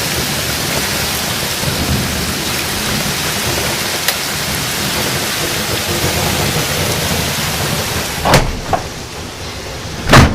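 Heavy rain and strong thunderstorm wind as a dense, steady rush. Near the end come two sharp, loud cracks about two seconds apart, and the rush is a little quieter after the first.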